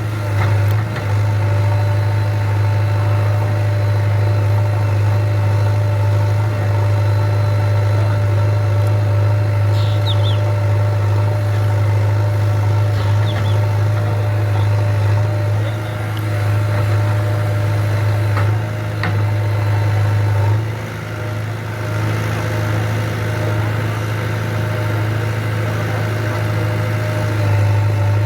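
JCB 3DX backhoe loader's diesel engine running steadily with a deep, even hum, its level easing briefly twice in the second half.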